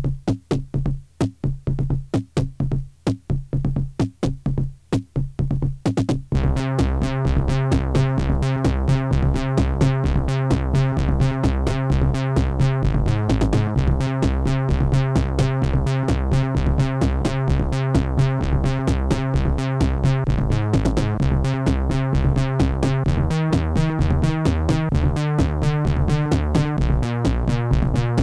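Electronic music: a drum-machine beat plays with gaps for about six seconds, then synthesizer bass and chords come in and run on over a fast, steady pulse.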